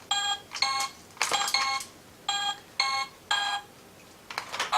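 Simon electronic memory game sounding a sequence of short electronic beeps, about six tones one after another with short gaps, as its coloured pads are played.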